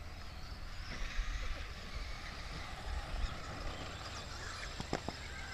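Radio-controlled short-course trucks running on a dirt track: a steady hiss with a low rumble underneath, faint whining in the second half, and a few sharp clicks near the end.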